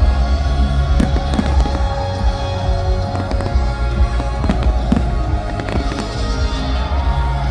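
Fireworks going off in quick succession, a string of sharp bangs and crackles, over loud show music with a heavy bass.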